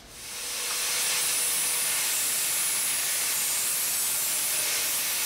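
A small electric angle grinder spins up and cuts through a thin metal strip. It makes a steady, hissing grind with a faint whine under it.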